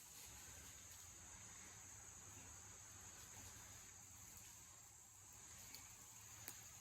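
Near silence, with a faint, steady, high-pitched insect chirring throughout and a few soft ticks near the end.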